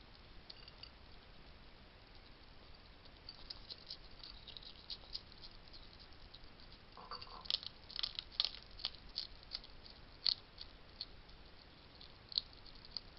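Wild hedgehog crunching dry food: a run of sharp crunching clicks, sparse at first and coming thick and fast from about halfway through.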